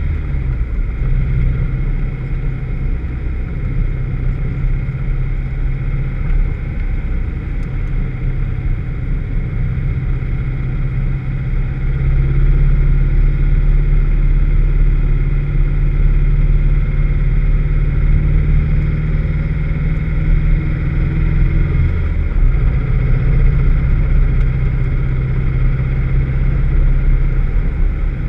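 Vauxhall VX220's four-cylinder engine running continuously, the car having a misfire. It gets louder about twelve seconds in and drops back briefly about twenty-two seconds in.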